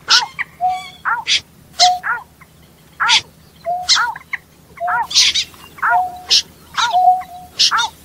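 Mixed wetland bird calls named as purple swamphen, snipe and greater painted-snipe. Short calls fall in pitch and end on a brief steady note, alternating with sharp high chirps in a fast, evenly repeating pattern.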